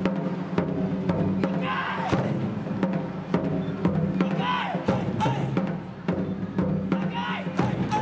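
Japanese taiko drum ensemble playing a dense, driving rhythm, with short shouted calls about every three seconds.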